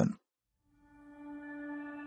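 Soft ambient background music with long held notes, fading in about a second in after a brief silence.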